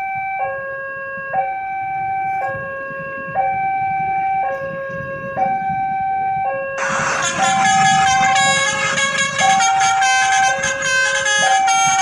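Railway level-crossing warning alarm sounding two alternating tones, a higher and a lower, each held about a second: the signal that a train is coming and the barriers are down. About seven seconds in, a much louder sound of many tones at once joins it, changing in a quick rhythm.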